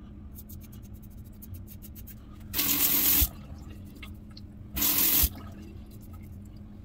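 A double-edge safety razor scraping stubble in a run of short strokes. The tap then runs in two brief bursts, about two seconds apart, rinsing the razor.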